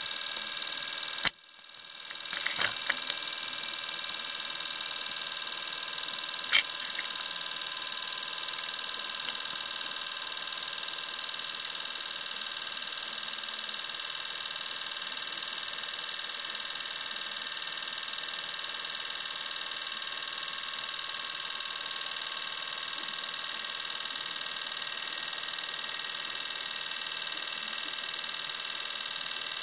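Four fuel injectors pulsing on a flow-test bench and spraying into measuring cylinders: a steady, fast ticking buzz with spray hiss. There is a sharp click about a second in and a few lighter clicks soon after.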